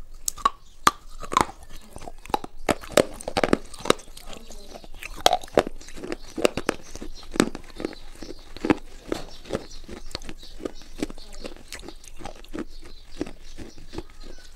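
A person biting and chewing something brittle and dry, with loud, irregular crunches that come thickest in the first half and get softer toward the end.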